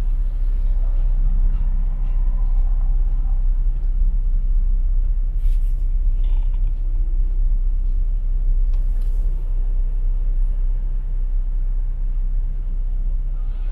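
Steady low rumble of a car driving slowly in city traffic, heard from inside the cabin. Two brief hisses come about five and a half and nine seconds in.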